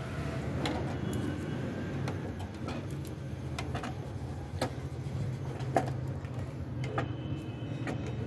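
Handling noise: scattered light clicks and knocks of small objects being moved about, the sharpest about six seconds in, over a steady low hum.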